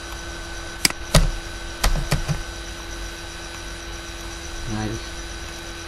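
A few sharp computer mouse clicks, two close together about a second in and more around two seconds in, as text is selected. A steady electrical hum runs underneath.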